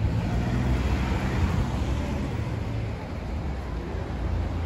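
Street traffic: car engines running and tyres on the road as cars pass close by, with a passing car's noise swelling in the first couple of seconds.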